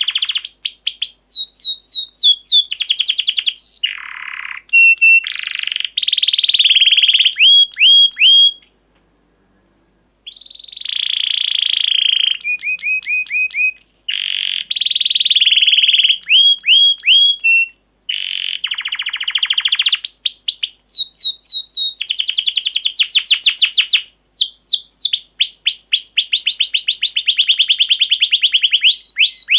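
Canary singing a long, loud song of rapid rolling trills and quick falling whistled notes. The song breaks off for about a second, then resumes.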